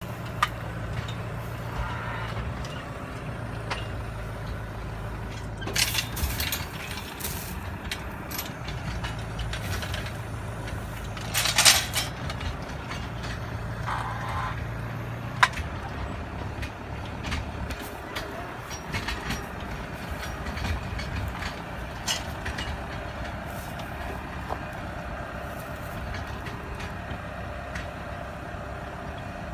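Tractor engine running steadily while a hydraulic bale-loader arm picks up and lifts small square alfalfa bales, with a few short noisy bursts and sharp knocks from the loader and bales, the loudest burst about twelve seconds in.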